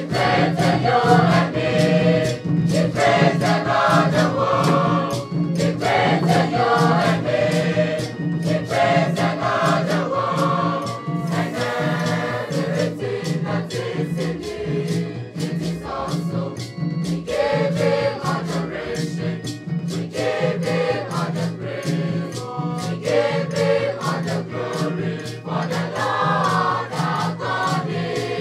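A mixed choir of young men and women singing in harmony. Hand drums and gourd rattles keep a steady beat under them.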